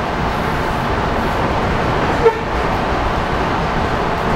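Suburban electric train running at speed, heard from inside the carriage as a steady rumble and rush of wheels on rail. About two seconds in there is one very short, sharp pitched blip.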